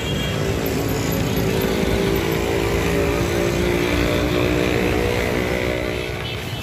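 Roadside traffic, with a motor vehicle engine running close by in a steady hum that eases off near the end.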